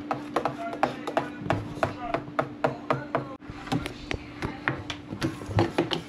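Spoon knocking and scraping against the sides of a stainless steel pot in quick, even strokes, about four a second, while stirring a very thick sea moss mixture.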